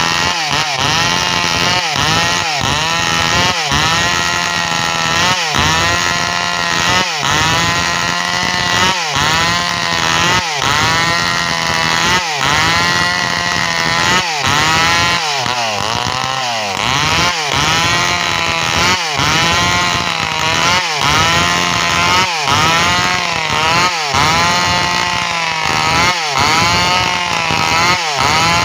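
Stihl MS 382 two-stroke chainsaw running at high revs while cutting waru wood. The engine pitch drops and climbs back every second or two as the chain bites and clears.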